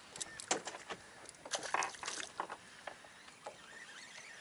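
Choppy water slapping against the hull of a small boat, in a string of irregular light knocks and splashes.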